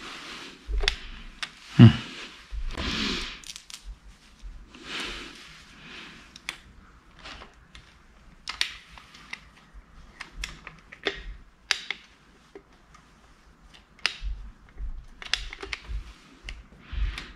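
Small metal clicks and clinks of hands fitting a timing chain tensioner and its bolt onto a bare engine block. Short rustling handling noises come in the first few seconds, and there is one sharp knock about two seconds in.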